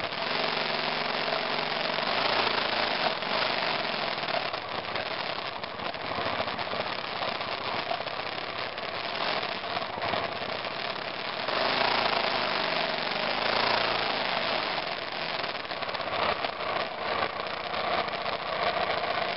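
Single-cylinder engine of a 2002 BMW F 650 GS Dakar motorcycle running under load on a rough climb, its note rising and falling, under a steady rushing noise. It grows louder for a couple of seconds about twelve seconds in.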